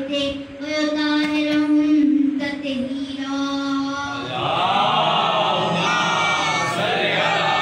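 A boy chants a Muharram lament (noha) through a microphone, holding long, steady notes. About four seconds in, a group of voices joins in chanting together, fuller and louder.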